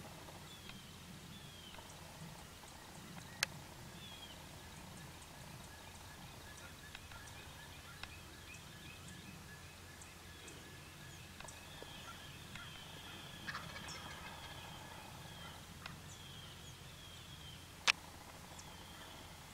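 A wild turkey gobbler gobbling faintly, with songbirds singing behind it. Two sharp clicks cut through, one about three seconds in and a louder one near the end.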